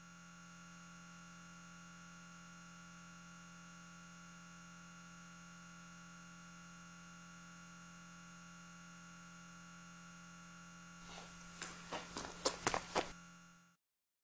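Steady electrical hum with a high hiss, and near the end a quick run of six or so sharp clicks, the later ones loudest, before the sound cuts off suddenly.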